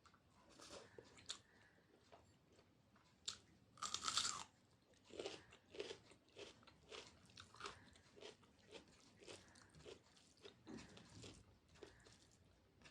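A person chewing food close to the microphone: one loud crunchy bite about four seconds in, then steady chewing at about two chews a second.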